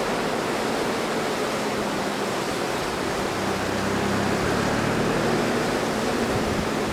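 River water rushing over shallow rapids, a steady, even rush.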